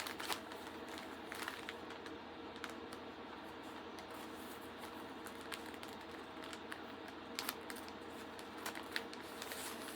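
Scattered rustles and clicks of a mailer package being handled and opened by hand, over a steady low background hum.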